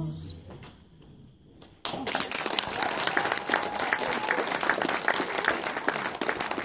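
The last sung note dies away, and after a short hush an audience breaks into steady applause about two seconds in.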